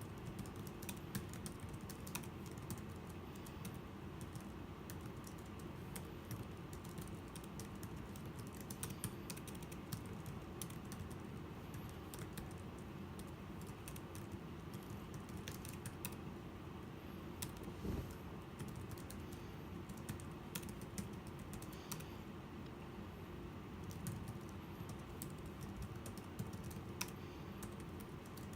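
Typing on a Logicool iK1200 keyboard case for the iPad Pro: keys clicking in quick, irregular runs, with one heavier keystroke about two-thirds of the way through.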